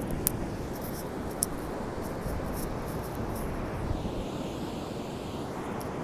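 Wind buffeting the microphone over the steady wash of ocean surf on a sandy beach, with a few light clicks.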